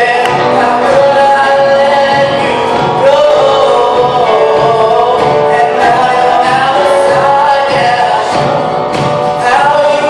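A live band playing a song, with a male voice singing long held notes over the drums and instruments.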